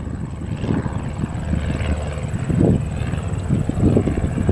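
Cessna 172S Skyhawk's four-cylinder Lycoming piston engine and propeller droning steadily as the plane climbs away after takeoff.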